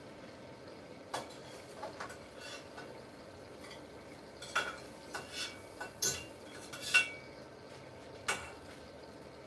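Dishes and cutlery clinking: scattered sharp clinks and knocks, with a cluster of louder ones a little past halfway, as a meal is dished up.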